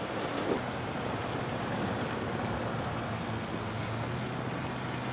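Steady wind noise rushing over the microphone, with a faint low hum underneath that grows a little stronger near the end.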